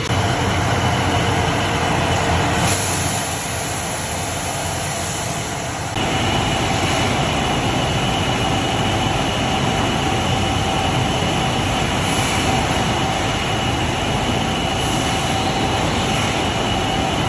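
Automatic CNC glass-cutting machine running with a steady mechanical noise. About six seconds in, a steady two-tone motor whine joins it.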